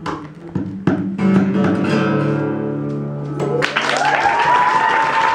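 Acoustic guitar strummed a few times, with a closing chord left ringing. About three and a half seconds in, applause breaks out, and a long whistle rises and then holds.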